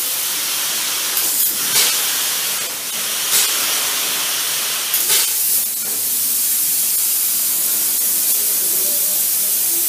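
High-pressure spray gun of a Cosmostar PF70 plural component airless sprayer hissing steadily as it atomizes coating. A few brief louder surges come in the first six seconds.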